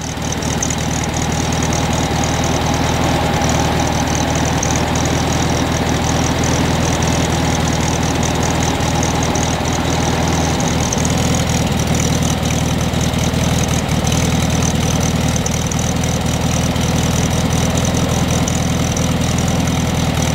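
1970 VW Beetle's air-cooled flat-four engine idling steadily.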